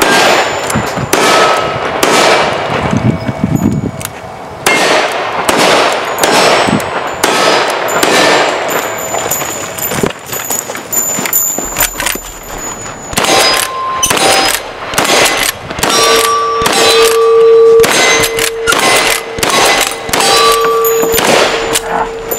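A long, rapid string of gunshots from revolvers and a long gun, many followed by the clang and ring of struck steel targets.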